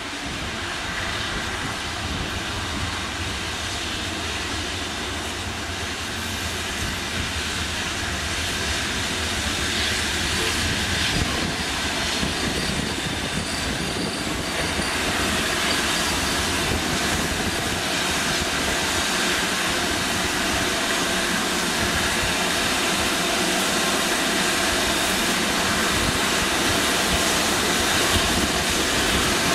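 Steam locomotive 70000 Britannia, a BR Standard Class 7 4-6-2, moving slowly on its own along station tracks: steady train and rail noise that grows gradually louder.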